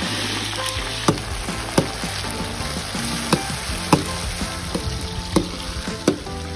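Oil sizzling and bubbling steadily in a large wok as food deep-fries, with about six sharp metallic clinks as the long metal spatula stirring it strikes the wok.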